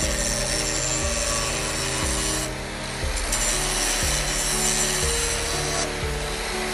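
Angle grinder's abrasive disc grinding a leaf-spring steel knife blade: a steady hiss that drops away briefly twice, about two and a half seconds in and near the end, as the disc comes off the steel. Background music with chords changing about once a second runs underneath.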